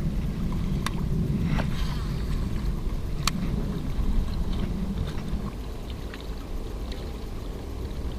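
Wind buffeting the open-air camera microphone as a steady low rumble, with a few sharp clicks from handling the rod and baitcasting reel about one, one and a half and three seconds in.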